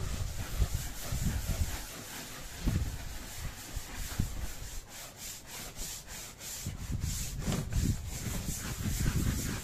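A surface being scrubbed by hand while cleaning a dog crate: a steady rasping rub. From about halfway in it turns into quick repeated strokes, with a few dull bumps.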